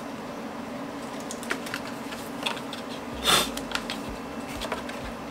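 Light clicks and taps of fingers handling and pressing on a PaperShoot paper camera's paper body, with a short rustle about three seconds in, over a steady low hum.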